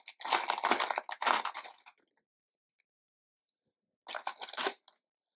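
Loose plastic LEGO bricks clattering and rattling as a hand rummages through a pile of parts, in two bouts: about two seconds from the start and a shorter one about four seconds in.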